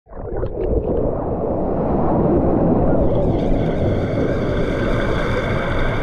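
Churning water of a current-driven wild river rushing around an action camera held at the surface. It sounds dull at first and brighter from about three seconds in.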